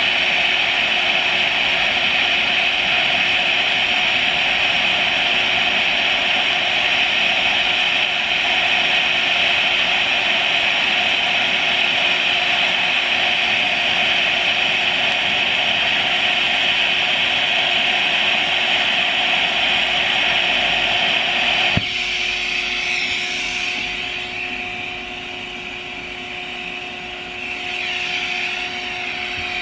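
DC TIG welding arc at about 80 amps, hissing steadily, then cutting out suddenly about 22 seconds in. A quieter hiss and a steady hum from the welder carry on after the arc stops.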